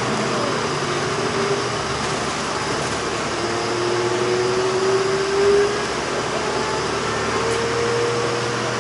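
Interior noise of a moving city bus: a steady engine and road rumble with a faint drivetrain whine that slowly rises in pitch a couple of times. It gets briefly louder about five and a half seconds in.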